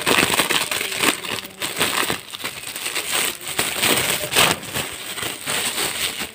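Thin clear plastic bags crinkling and rustling continuously as they are handled, with many small sharp crackles.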